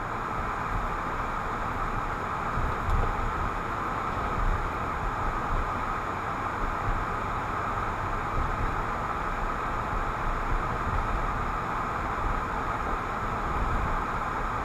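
Steady driving noise of a car, heard from inside the cabin through a windshield-mounted dashboard camera: an even hiss of tyres and road with a low rumble underneath.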